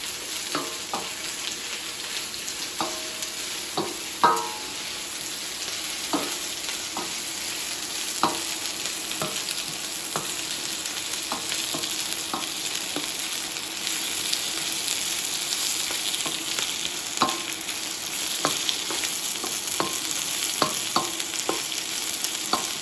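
Vegetables sizzling in hot vegetable oil in a large frying pan as they are stir-fried, with frequent light knocks and scrapes of the stirring utensil against the pan and a louder knock about four seconds in.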